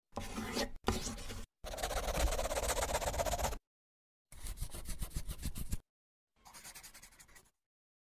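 Pencil-scribbling sound effect on paper in five scratchy bursts of about half a second to two seconds, cut apart by dead silence; the last burst is quieter.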